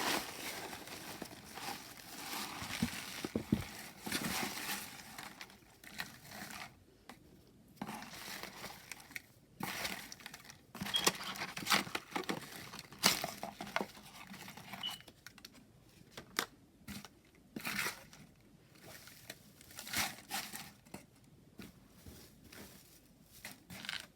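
Packaging being handled and crinkled by hand while a tarot deck is unboxed: irregular crinkling and rustling with scattered light taps and clicks.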